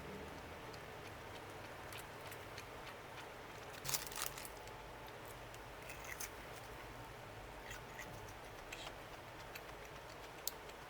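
Scattered soft clicks and taps over a steady low hiss, with a brief louder cluster about four seconds in: the small sounds of handling and eating food.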